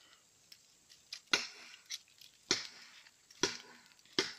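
A series of sharp knocks, about one a second and evenly spaced, each with a short ringing tail.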